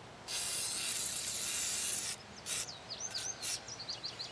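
WD-40 aerosol can spraying: one steady hiss of nearly two seconds, then two short squirts. Birds chirp faintly near the end.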